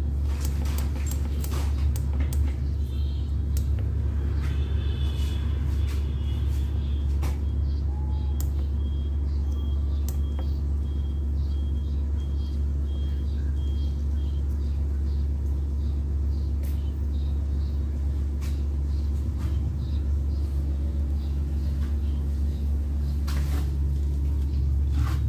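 An 8 kVA Isuzu generator running steadily, a deep, even rumble. A faint high-pitched tone sounds for several seconds in the middle.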